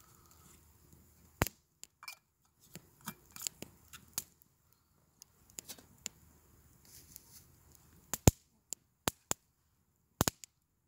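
Irregular sharp clicks and knocks from handling a knife and a raw potato, ending with the knife starting to peel it; a few louder cracks stand out, the loudest a little after eight seconds in.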